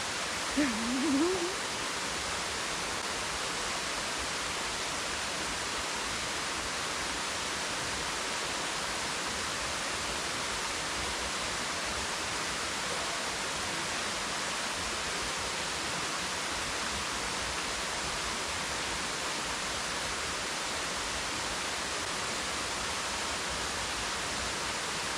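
Steady rushing of a stream or river flowing, an even hiss-like wash of water. A short wavering vocal sound comes about a second in.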